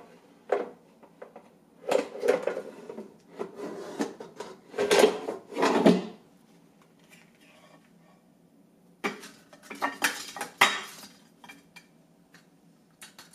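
Philips Airfryer pan and metal mesh basket being handled as the pan is pulled out and the basket lifted out of it: a series of knocks, clicks and scrapes in several clusters, with quieter stretches between.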